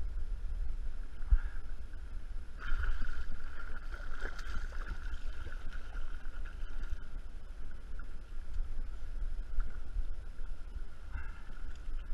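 A small hooked fish splashing at the surface as it is reeled up beside a canoe, with water lapping and a steady low rumble of wind on the microphone.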